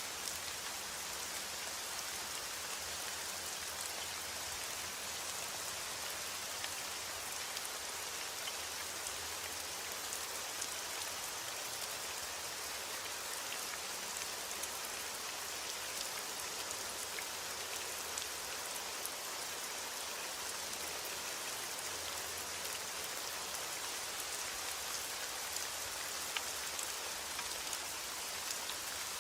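Steady rain falling, with scattered pattering of individual drops hitting a surface.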